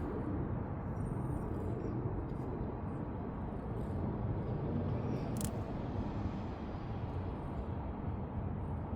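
Steady low background rumble of outdoor ambient noise, with one faint click about five seconds in.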